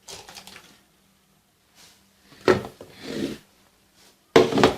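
Kitchen handling of utensils and soft cake filling: a few short wet scrapes and dabs, with a sharp knock about two and a half seconds in and a louder clatter near the end.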